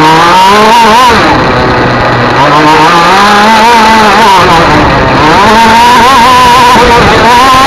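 Loud racing engine revving hard and falling back several times as the vehicle accelerates and brakes along a course. Its pitch climbs during roughly the first second, drops, climbs again over the next two seconds, falls, rises once more and then holds fairly steady near the end.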